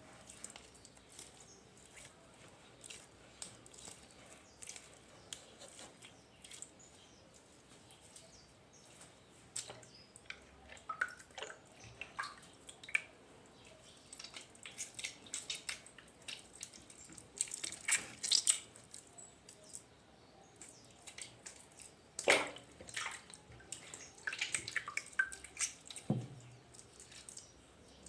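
Irregular wet squelches, clicks and drips as a soft silicone squishy toy is squeezed and washed with water, with a few short squeaky glides. The handling is louder and busier in two stretches in the second half.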